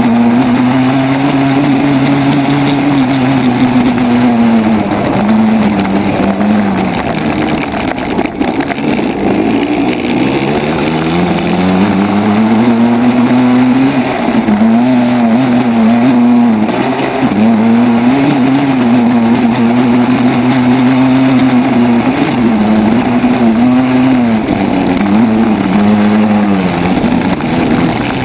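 Dirt bike engine running under way, its pitch rising and falling with the throttle. About six seconds in it drops away, then climbs back slowly. After that it makes repeated quick rises and dips.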